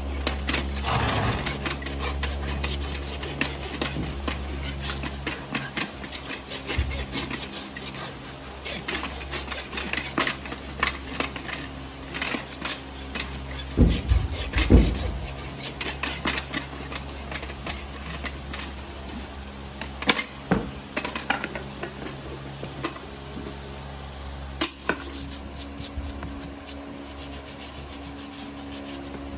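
Farrier's rasp filing a horse's hoof wall: a long run of repeated rough scraping strokes, with a couple of dull thumps about halfway through.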